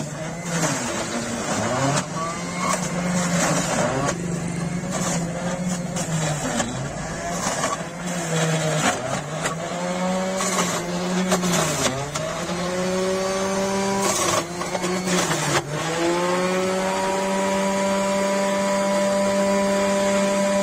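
Electric juicer's motor running while beetroot chunks are pushed down its feed chute. The hum sags in pitch each time a chunk meets the cutter and climbs back, with grinding crackles. Over the last few seconds it runs steadily.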